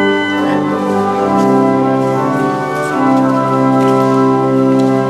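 Church organ playing slow, sustained chords that change a couple of times.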